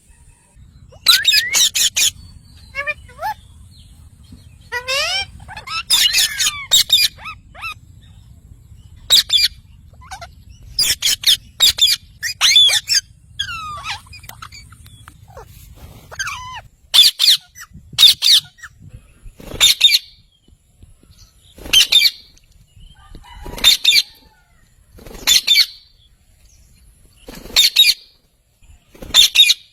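Rose-ringed (ringneck) parakeets screeching loudly and harshly, mixed with chirps and gliding calls in the first half; later the screeches come singly, about one every two seconds. A faint low hum runs underneath until just past the middle.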